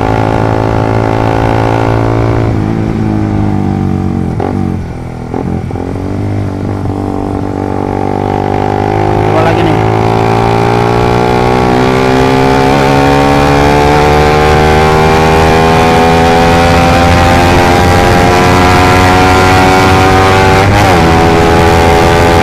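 Suzuki GSX motorcycle engine breathing through a short Pro Liner aftermarket exhaust under hard acceleration. The note drops and dips a few seconds in, then climbs slowly and steadily through a long pull, with a sudden drop in pitch near the end as it shifts gear. The slow rise in revs goes with the weak, slow-building acceleration the rider blames on this exhaust.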